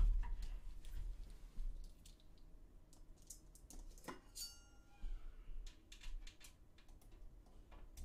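Light scattered clicks and ticks of small screws being handled and set into a radiator against a steel PC case top panel, with one sharper metallic clink about four seconds in that rings briefly.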